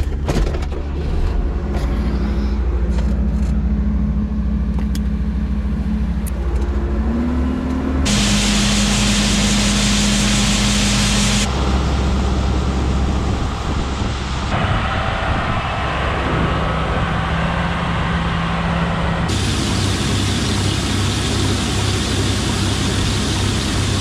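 Diesel tractor engines running steadily, driving a corn-cracking mill and auger as a grain trailer unloads. The drone changes abruptly several times, and the engine pitch rises briefly about seven seconds in.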